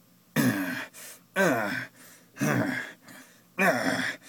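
A person's voice giving four short, breathy gasping exclamations, about one a second, each falling in pitch: acted vocal effects for a comic being read aloud.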